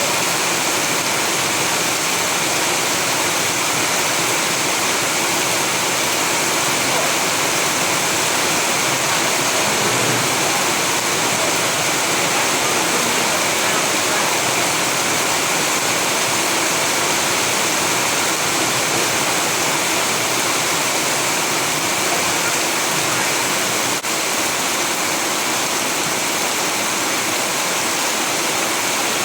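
Steady, heavy rain: a dense, even hiss of falling water with no breaks in it, with a single momentary dip in level late on.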